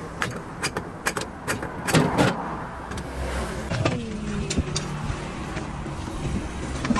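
A run of sharp knocks and clanks, most of them in the first couple of seconds and a few more around four to five seconds in, over a steady vehicle engine and road noise.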